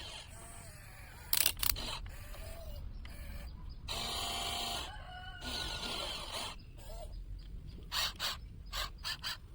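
Chickens calling: short clucking calls and a longer crow about four seconds in, with a few sharp clicks just after the start and a quick run of clicks near the end.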